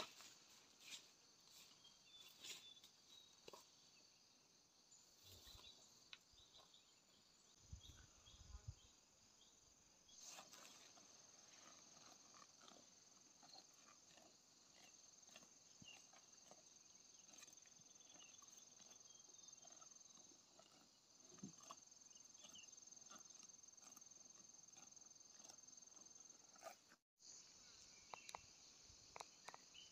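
Faint insect buzzing, high-pitched and steady, with a thin shrill tone that comes and goes through the middle and scattered soft clicks and rustles. The sound cuts out for a moment near the end.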